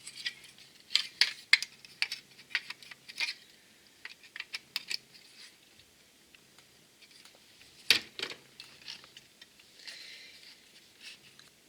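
Electronic modules and circuit boards handled on a work surface: a run of light clicks and taps, one sharper knock about eight seconds in, and a brief rustle near ten seconds.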